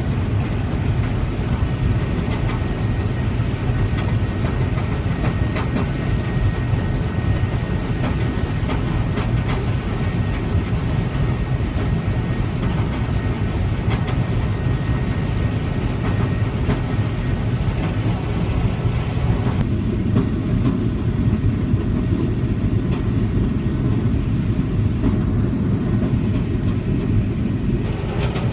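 Harvest machinery running steadily: a low engine rumble with a continuous rattling clatter. The higher rattle drops away sharply about twenty seconds in and returns near the end.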